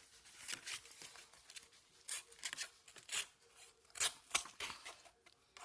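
Small blade of a Leatherman Squirt PS4 cutting into cardboard in a series of short, irregular scraping strokes.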